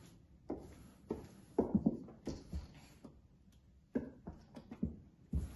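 Wooden spoon stirring thick cake batter in a stainless steel mixing bowl, with irregular knocks and scrapes of the spoon against the bowl.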